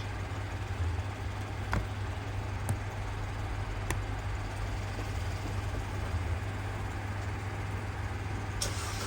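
A steady low mechanical hum runs throughout, with a few light clicks and knocks of the wheel-lock key and its box being handled in the car's boot, including a small cluster near the end.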